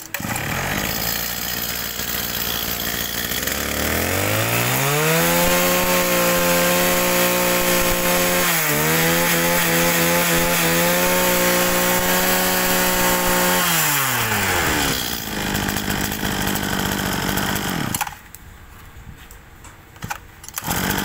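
Mitsubishi TL26 two-stroke brush cutter engine idling, then revved up about four seconds in and held at full throttle for about ten seconds, with one brief dip. It then drops back to idle and cuts off near the end.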